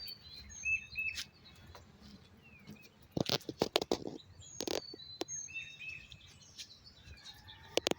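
Birds chirping in short, high calls over a quiet background, with several sharp clicks and knocks between about three and five seconds in.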